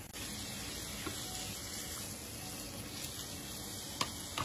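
Thin slices of fatty beef sizzling on a round barbecue grill pan, a steady frying hiss, with a couple of sharp clicks near the end.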